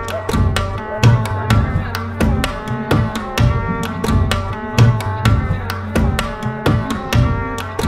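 Background music with a steady, quick drum beat under a melody.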